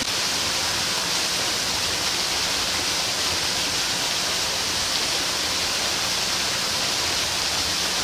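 Steady hiss of rushing water, even and unbroken.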